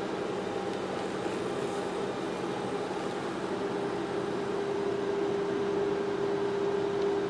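LF 245 cryolipolysis machine running with its handpiece on low vacuum: a steady mechanical hum that grows a little stronger about halfway through.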